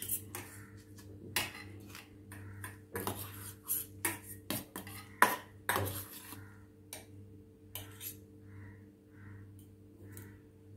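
Steel spoon and fork clinking and scraping against stainless steel bowls as cutlets are turned in beaten egg and bread crumbs: irregular clinks, busiest in the middle few seconds and sparser towards the end. A faint steady hum runs underneath.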